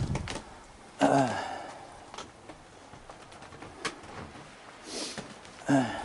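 A man's brief wordless murmurs, twice, each falling in pitch: once about a second in and again near the end. A few faint clicks come between them.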